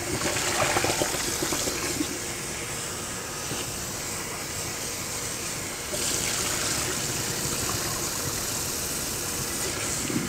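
Kitchen tap running water into a pot of neck bones, rinsing off the foam after their first boil. The flow gets louder about six seconds in.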